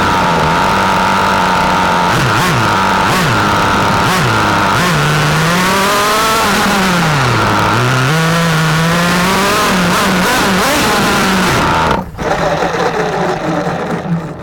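Small nitro engine of a vintage 1/8-scale RC racing car running at high revs, its pitch dipping and climbing again several times as the throttle is lifted and reopened. About twelve seconds in there is a sharp knock, and the engine note falls away as it winds down near the end.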